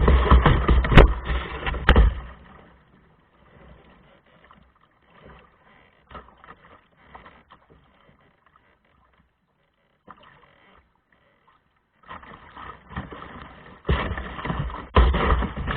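Water splashing and rushing around a canoe or kayak on a river, loud and rough for the first couple of seconds, dropping to faint scattered splashes, then loud again near the end.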